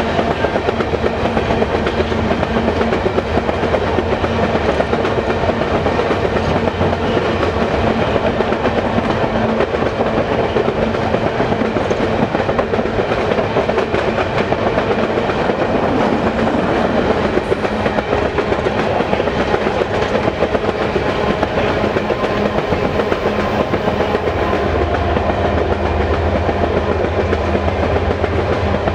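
A long train of empty steel coal cars rolling past, a steady loud rattle and clatter of wheels on the rails. Near the end a deeper engine drone grows as a mid-train ES44AC distributed-power diesel locomotive comes by.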